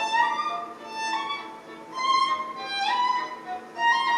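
Music: a melody of long held notes, a few of them sliding up in pitch into the next note.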